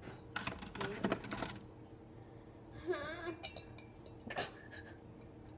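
Metal fork clinking and scraping against the glass neck of a wine bottle as it is jabbed into a stuck cork. A quick cluster of clinks comes in the first second and a half, and another comes about four seconds later.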